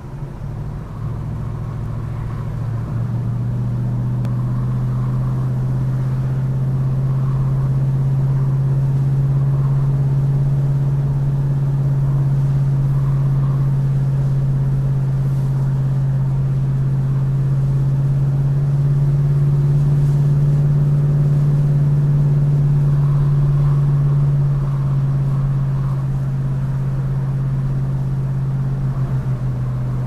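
1969 Dodge Super Bee's V8 engine running at highway speed, a steady low drone that grows louder over the first few seconds as the car gets up to speed and eases a little about 25 seconds in. Heard from inside the cabin with the windows open.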